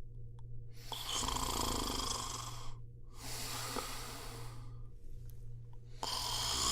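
A person snoring in long, noisy breaths. The loudest breath starts about a second in and carries a low rattle, a softer breath follows, and another loud breath begins near the end.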